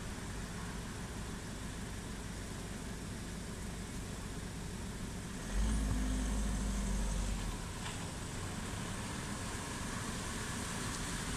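Police car with blue lights approaching slowly, its engine and tyres making a steady low running noise, louder for about two seconds near the middle.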